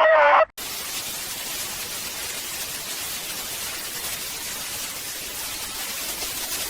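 A loud, wavering pitched sound cuts off abruptly about half a second in. A steady static hiss follows, like a dead broadcast signal, the sign of the transmission going off the air.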